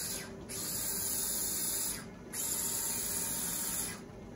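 Steady whirring hiss of the Panda Hobbies Tetra X2 mini crawler's small electric motor and two-speed gearbox spinning in high gear, over a running treadmill; the hiss cuts out briefly twice, about two seconds apart, as the throttle is let off.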